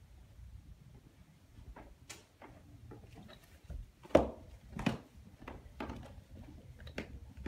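Footsteps climbing carpeted stairs: a run of dull thumps that starts about four seconds in, roughly one every half second or so, the first the loudest.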